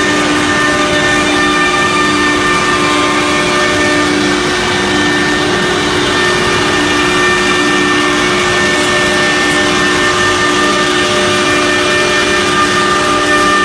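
CNC router with a 6 kW HSD spindle running and machining a sheet: a steady whine of several held tones over loud, even cutting and dust-extraction noise.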